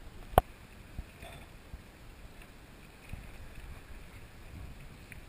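A sharp knock on the inflatable kayak about half a second in, then a lighter tap about a second in, over a faint low wash of water and wind on the microphone that grows a little fuller near the end.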